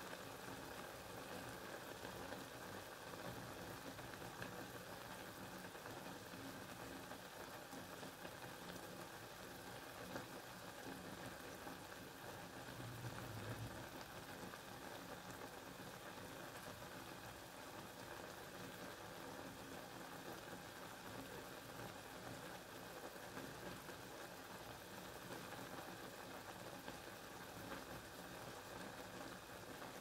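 Steady, faint rain falling, an even patter with no distinct drops standing out. About halfway through there is a brief low rumble.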